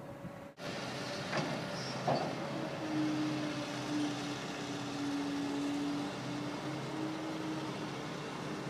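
A steady low engine hum over a background rush, with two short louder sounds in the first couple of seconds.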